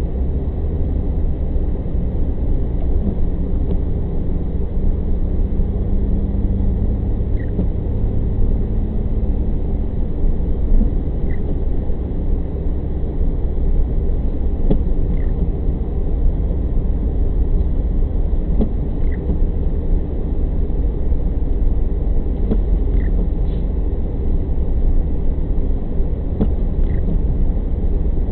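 Steady low road and engine rumble heard inside a moving car on a wet road. A faint short squeak, likely from the windshield wipers, comes about every four seconds.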